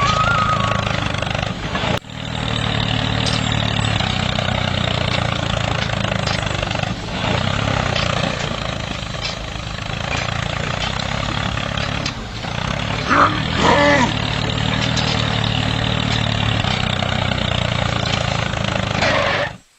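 A small motor running steadily with a low, even hum, the drive of a DIY mini tractor, briefly dipping about two seconds in.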